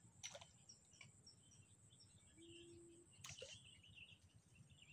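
Near silence: faint small birds chirping over quiet lakeside ambience, with a steady high tone and two brief clicks, about a third of a second and three seconds in.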